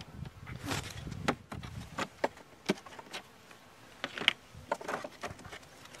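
Wooden beehive frames knocking and clicking against each other and the hive box as they are lifted and handled: a run of sharp irregular knocks.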